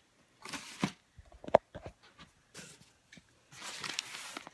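Newspaper rustling as it is handled, in short patches, with one sharp knock about a second and a half in and a longer stretch of rustling near the end.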